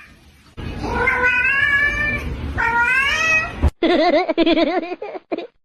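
A cat yowling in two long, drawn-out calls that waver and rise in pitch. Just under four seconds in, the sound cuts abruptly to a different wavering, warbling cry.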